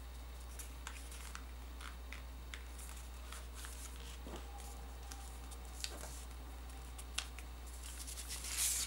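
A sheet of paper being folded and creased by hand: scattered light crinkles and taps, with a louder rustling swish near the end.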